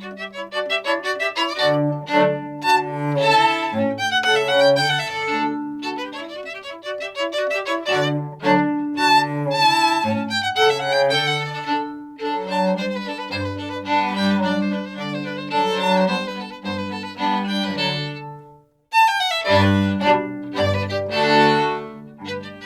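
A small Baroque string orchestra playing live: a busy violin line over cello and bass. The music stops short for a moment near the end, then comes straight back in.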